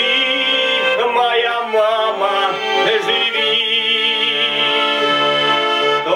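Garmon (Russian button accordion) playing a melody over a held bass accompaniment, as the song's instrumental close.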